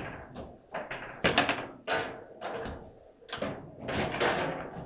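Table football in play: a rapid, irregular series of sharp knocks as the hard ball is struck by the plastic players and bangs against the table, with the rods clacking as they are spun and slid.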